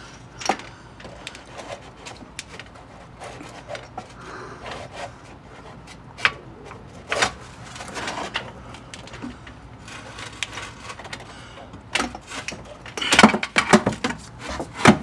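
Scattered clicks and knocks of hand tools working on metal bolts under a vehicle, with a denser run of sharper clicks and knocks near the end.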